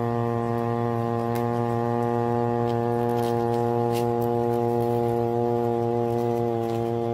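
Steady, low hydraulic-press motor hum with a stack of overtones, unwavering in pitch, with a few faint crackles as a green bell pepper is crushed in a hand.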